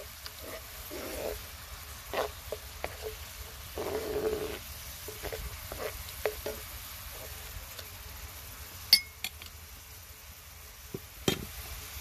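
Tomato and onion sauce bubbling in a large metal pan while a spoon stirs it, with scattered taps and scrapes of the spoon against the pan. A sharp knock comes about nine seconds in and another near the end.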